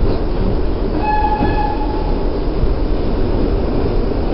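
R62A subway train running through a tunnel, heard from inside the car: a steady, loud rumble of wheels on rails. A brief high tone with overtones sounds about a second in.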